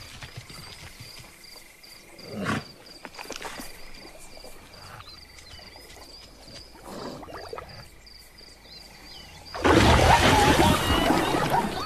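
Cartoon savanna ambience: a high chirping repeats at an even pace under a few soft animal sounds from zebras drinking at a waterhole. About ten seconds in, a sudden loud burst of splashing and a roar sounds as an animal lunges out of the water and the zebras scatter with cries.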